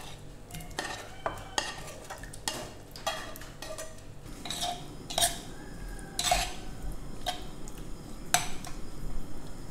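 Black plastic spatula scraping fried pork belly out of a frying pan into a clay pot, then stirring the pork in the pot: irregular scrapes and clicks of the utensil against pan and pot, a few sharper knocks among them.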